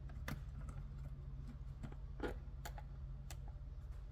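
Irregular small clicks and ticks of fingers and a small screw being fitted into the plastic housing and circuit board of a Subaru SVX instrument cluster, over a low steady hum.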